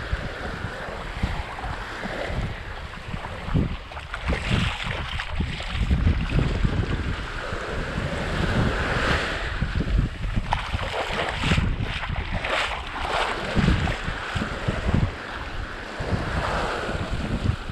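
Small waves washing up and draining back on a sandy beach, with wind buffeting the microphone in irregular low gusts.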